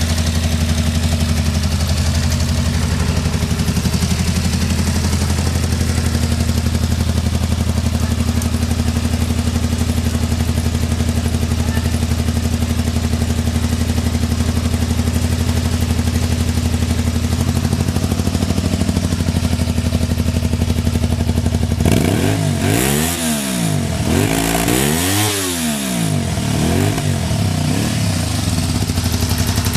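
Honda VT250 Spada's V-twin motorcycle engine idling steadily, then revved up and back down twice about twenty-two seconds in before settling back to idle. The idle is stable, with no abnormal noises.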